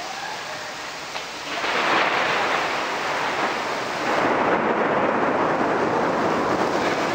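Heavy rain falling, a steady hiss that grows louder about a second and a half in.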